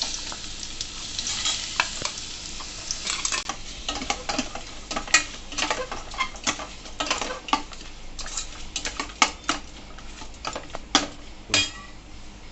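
Coarse-ground spice paste going into hot sesame oil and sizzling in the pan, the hiss strongest in the first couple of seconds and then dying down. The paste is stirred throughout, with frequent clicks and scrapes of the stirring utensil against the pan.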